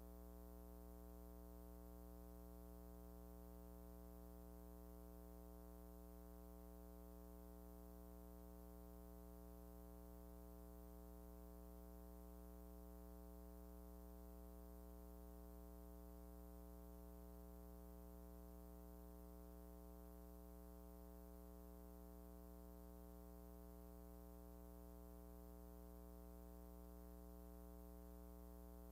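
Near silence, with only a faint, steady electrical hum holding one unchanging low pitch and its overtones.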